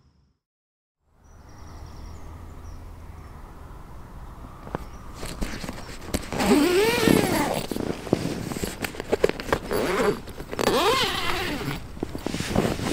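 Snugpak Ionosphere bivvy tent's door zip being pulled open in several long strokes, each rising then falling in pitch as the pull speeds up and slows, with nylon fabric rustling between pulls.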